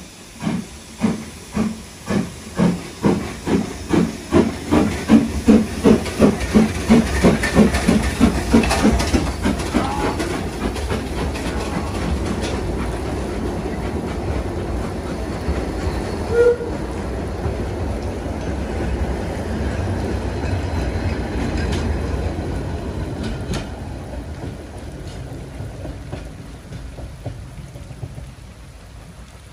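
Narrow-gauge steam locomotive pulling away: its exhaust chuffs, about two a second at first, quicken and run together over the first ten seconds into a steady rumble of the moving train. A brief tone sounds about halfway, and the rumble fades in the last few seconds.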